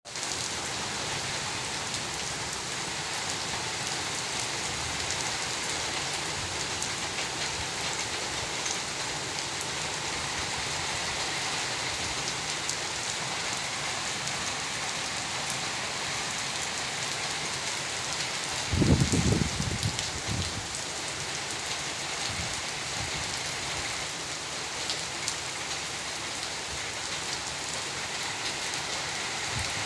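Heavy rain falling steadily, heard from under a corrugated sheet roof. A brief low rumble comes a little past the middle.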